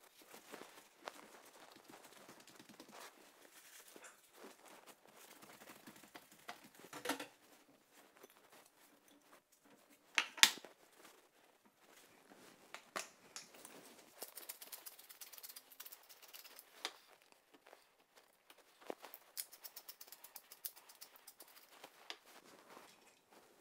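Faint kitchen handling sounds as raw beef strips are moved and coated: soft rustles and small knocks, with one sharp clack about ten seconds in as a plate is set down on the wooden board. Later come two runs of quick light ticking as black pepper is shaken over the meat.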